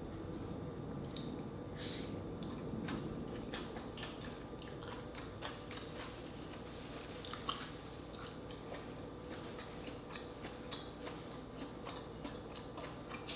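A person chewing green-lipped mussel meat close to the microphone, with soft, irregular mouth clicks and smacks over a steady low hum.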